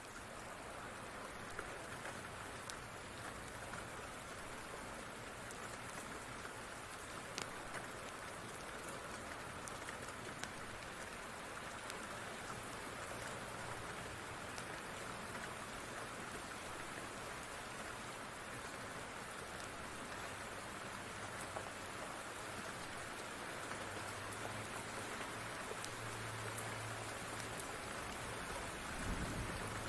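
Steady rain falling, with scattered sharp clicks and a soft low thump near the end.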